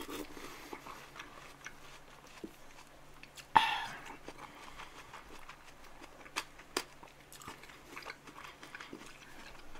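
Close-miked biting and chewing of juicy watermelon, with soft wet crunching. There is one sudden loud sharp click about three and a half seconds in, and a couple of smaller clicks a few seconds later.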